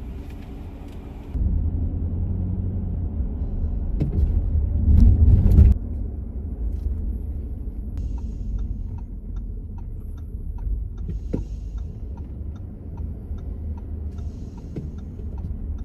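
Low rumble of a car driving, heard from inside the cabin; it swells for a couple of seconds about four seconds in.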